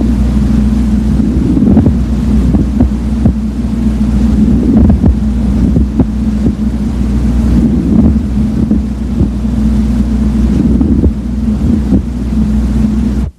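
Stethoscope recording of breath sounds over the right middle lobe with a pleural friction rub: a steady low rumble with many short, irregular clicks. It cuts off suddenly near the end.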